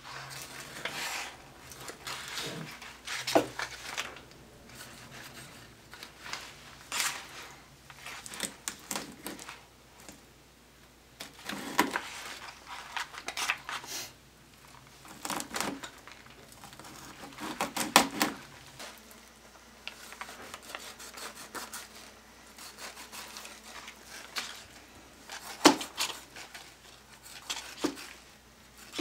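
Cleaver-style knife cutting a whole catfish's flesh away from the backbone: irregular scraping and rubbing of the blade through flesh and bone, with scattered sharper knocks on the wooden cutting board.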